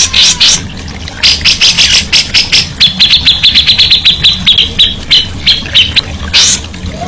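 A songbird singing loud, rapid series of sharp repeated notes, breaking into a faster, even trill of about ten notes a second from about three to six seconds in, over a low steady hum.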